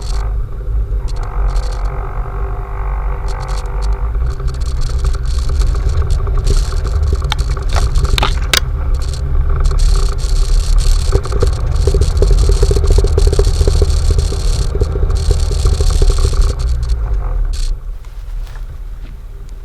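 Off-road vehicle running while driving, a steady low engine rumble that grows louder through the middle and drops away near the end.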